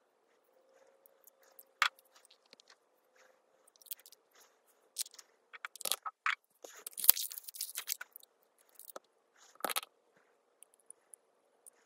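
Close handling noises as a fountain pen is unscrewed and a glass ink bottle is picked up and handled to ink it: small clicks, knocks and scraping. There is a sharp click about two seconds in, and a busier run of scrapes and knocks from about six to eight seconds.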